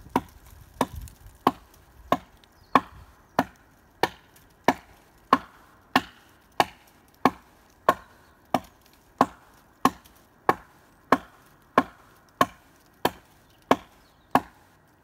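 A hatchet chopping into a fallen tree trunk: steady, evenly spaced strikes of steel on wood, about one and a half a second.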